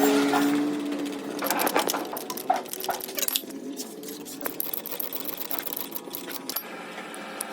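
Irregular metallic clicks and rattles of hand tools at work on a motorcycle, thickest in the first half and thinning out toward the end. A pitched motor sound cuts off at the very start.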